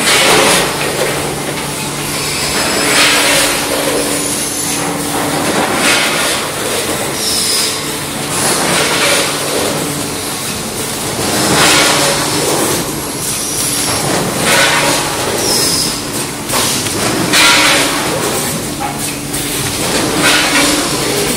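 Automatic snack packaging line running: a multihead weigher feeding a vertical form-fill-seal bagging machine. A noisy burst repeats about every three seconds over a steady machine hum, the machine's cycle as each bag is filled, sealed and cut.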